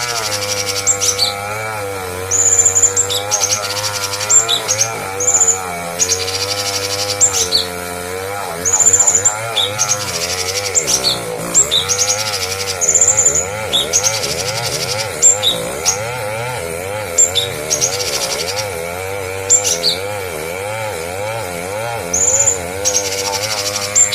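Songbird calls: short, high chirps and whistled trills repeating every second or so, over a continuous wavering lower drone.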